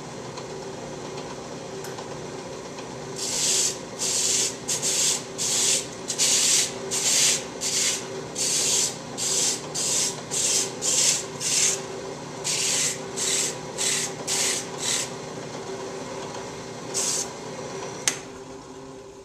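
Drill press running with a flexible sanding pad in its chuck, a steady motor hum. From about three seconds in, the flat inside wall of a wooden bowl is pressed lightly against the spinning sandpaper disc in a run of short sanding strokes, about one or two a second, which stop a few seconds before the end. A sharp click comes near the end.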